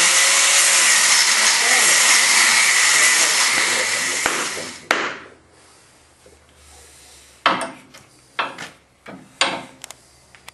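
A power grinder grinding steel, running steadily and then dying away about four and a half seconds in, ending in a click. After that come a few short, separate scraping strokes on wood.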